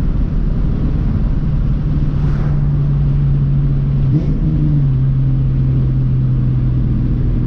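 2001 Mustang GT's 4.6-litre V8 running steadily through an X-pipe and Flowmaster 40 series mufflers, with a deep rumble. About four seconds in the engine note briefly rises, then settles lower.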